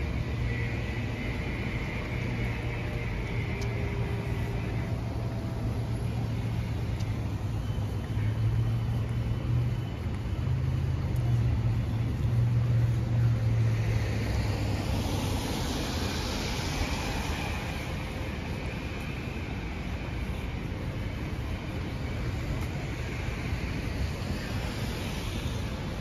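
City street traffic on wet pavement: a low engine rumble that is loudest in the middle, then a car passing with a swell of tyre noise about fifteen seconds in.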